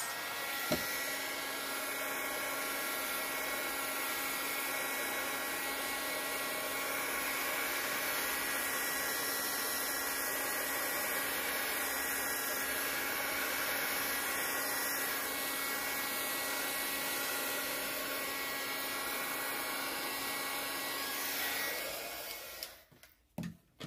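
Small handheld craft heat gun running steadily over freshly poured epoxy resin to pop bubbles: a constant blower whir with a steady hum, switching off near the end. A single click sounds just after it starts.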